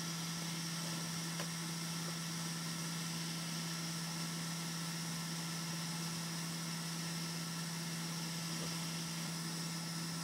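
Steady low hum over a constant hiss from bench equipment running, with no change in pitch or level.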